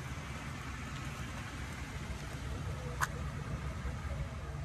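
Pickup truck engine idling, a steady low hum, with a single sharp click about three seconds in.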